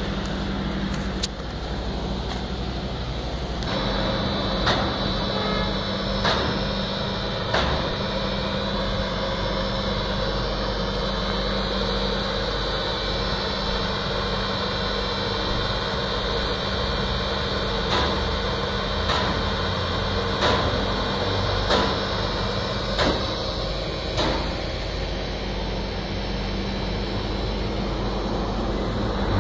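Heavy trucks and machinery running steadily: a constant low drone with a high steady whine over it. Sharp knocks repeat about every second and a quarter, in a short run near the start and a longer run in the middle.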